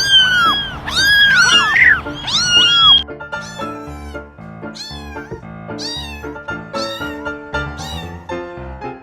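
A domestic cat meowing again and again, each call rising and falling in pitch. The meows are loudest in the first three seconds, then come fainter about once a second, over background music.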